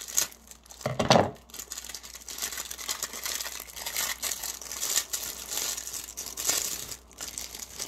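Crinkly plastic packaging rustling and crackling as it is handled and torn open, with a dull bump about a second in.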